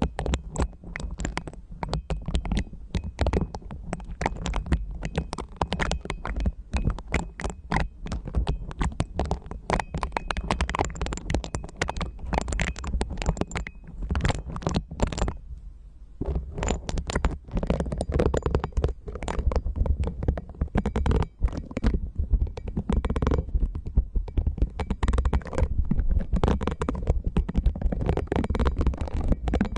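A pink mascara-wand brush brushed and scratched rapidly over the mesh grilles of two microphones, close up, giving dense crackling scratches over a deep rumble. There is a brief pause about fifteen seconds in.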